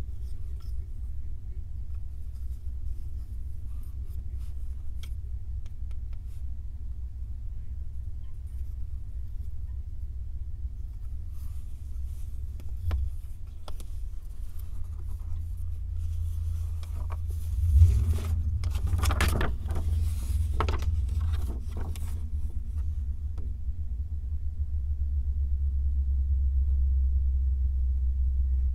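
A steady low rumble throughout, with scattered light clicks and, about two-thirds of the way through, several seconds of crackling and rustling as 3D puzzle pieces are handled.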